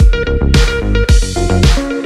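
Electronic dance music with a steady beat of about two kick-drum thumps a second under synth notes.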